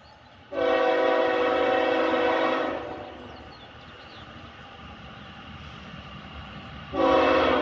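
Freight locomotive air horn sounding a steady chord of several tones, about two seconds long. A second blast starts near the end, with train noise continuing between the blasts.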